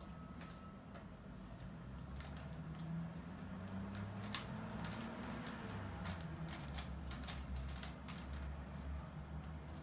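GAN 354 M magnetic 3x3 speedcube being turned fast during a speedsolve: rapid, irregular plastic clicking and clacking of the layers snapping into place.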